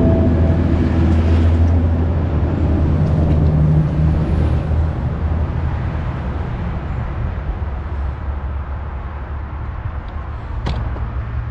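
Road traffic going by: a passing vehicle's low engine rumble, loudest in the first few seconds and slowly fading away, with a sharp click near the end.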